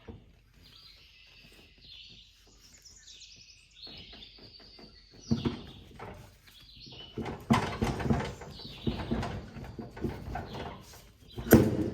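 Birds chirping, then from about five seconds in a run of clunks, knocks and scraping as the wheel hub is worked onto the riding mower's axle and keyway, with the loudest knock near the end.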